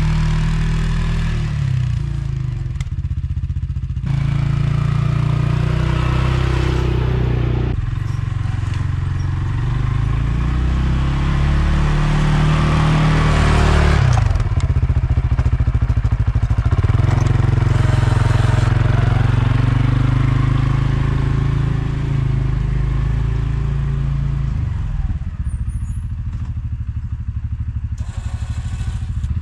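ATV engine running while it plows snow, its pitch rising and falling as the machine works back and forth. A rushing noise rises and falls over it at times.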